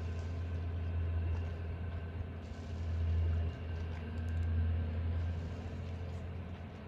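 Car ferry's engines running with a steady low drone, over a faint hiss of water and wind, as the boat comes in slowly toward the slip.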